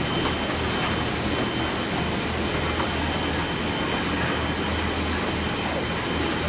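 Steady rushing hum of running printing-shop machinery, with a low drone underneath and a faint, steady high whine.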